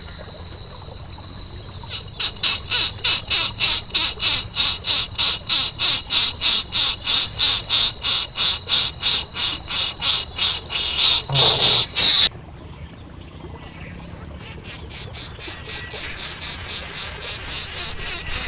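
Chorus of calling insects and frogs: high-pitched chirping pulsed evenly about three times a second, which cuts off suddenly after about ten seconds. A sound swoops down in pitch just before the cut, and faster, higher chirping starts up after a short lull.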